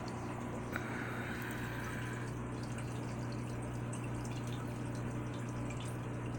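Aquarium filter running: a steady low electrical hum with water trickling and dripping into the tank, and a faint tick under a second in.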